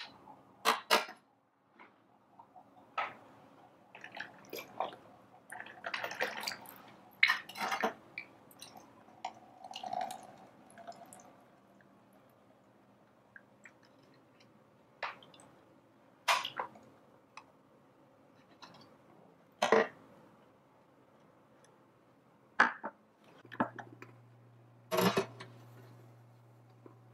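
Small stainless-steel saucepan clinking and knocking as it is handled in a miniature sink and set on a miniature stove, with water from a tiny tap running into it. The clinks come irregularly, one or two every few seconds. A low steady hum starts near the end.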